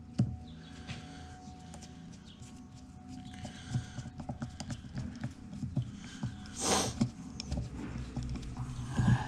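Light, irregular clicks and taps of small turbocharger center-section parts being handled and fitted by hand, over a low steady hum, with a short hiss about seven seconds in.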